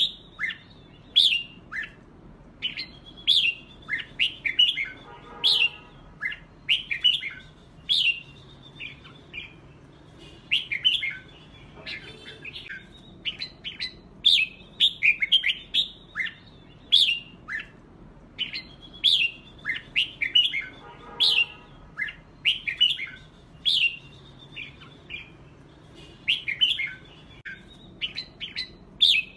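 Red-whiskered bulbuls singing competitively: a rapid run of short, bright whistled phrases with quick up-and-down sweeps and brief pauses. This is the contest song used to spur caged bulbuls into singing.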